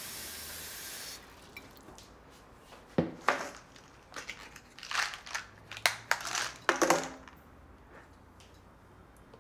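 Plastic pill organizer being handled: a couple of sharp snaps about three seconds in, then clusters of clicking and rattling, like pills tipped out into a hand, from about five to seven seconds in. A steady hiss at the start stops after about a second.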